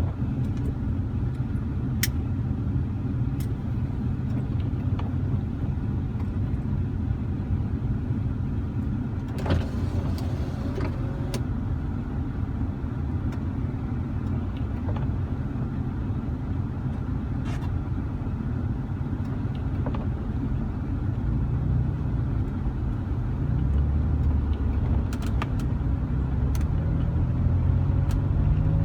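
Car engine and tyre noise heard from inside the cabin while climbing a hill in the rain, a steady low rumble with scattered sharp ticks and a brief swish about ten seconds in. From about two-thirds of the way the engine note rises and grows louder.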